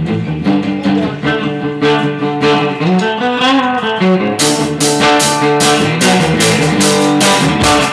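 Instrumental music with plucked string notes; about halfway through, a crisp beat of roughly three hits a second comes in.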